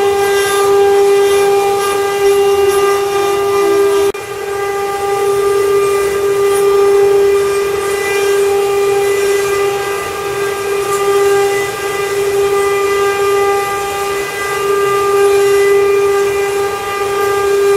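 CNC wood-carving router's spindle running with a steady high-pitched whine, dipping briefly in pitch about four seconds in.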